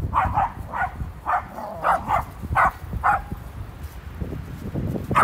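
A dog barking in play: about eight quick, sharp barks over the first three seconds, then a pause.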